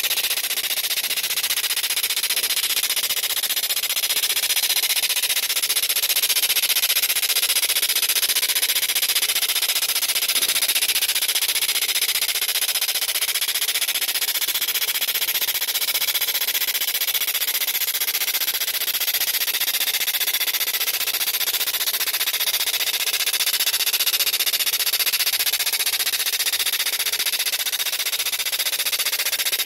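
LSLASER laser cleaner ablating black graffiti paint off a stone block: a steady, dense high crackle of rapid tiny pops, with a constant high tone over it.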